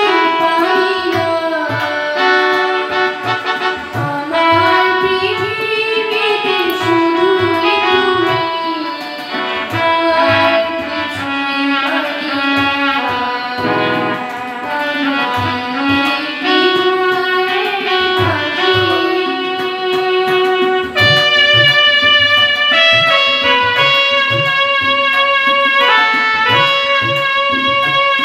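A girl singing a song into a microphone, accompanied by harmonium and a steady drum rhythm. About 21 seconds in the voice stops and the instruments carry an interlude of held, steady notes.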